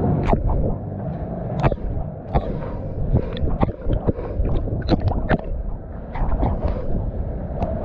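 Pool water sloshing and gurgling close to the microphone, with many short, sharp splashes and clicks at irregular intervals.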